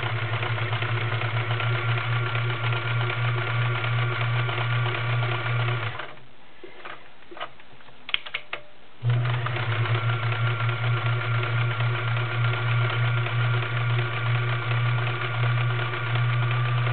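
Vintage Kenmore model 1525 sewing machine, all metal with no plastic gears, sewing a pine leaf stretch stitch at a steady speed. It stops about six seconds in, a few light clicks follow, and it starts again about three seconds later and runs until just before the end.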